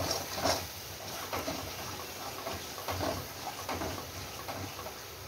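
Steel spatula stirring and scraping a thick onion-tomato masala paste frying in oil in a steel kadhai, with irregular soft scrapes and taps against the pan about once a second.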